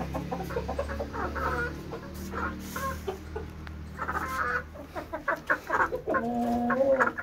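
Several chickens clucking in quick, short calls, with one longer, level call about six seconds in.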